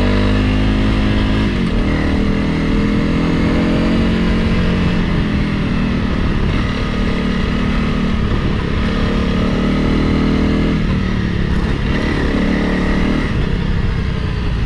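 Single-cylinder engine of a Honda CRF Rally dual-sport motorcycle running under way, its revs rising and falling as the throttle and gears change, with wind rumbling on the microphone.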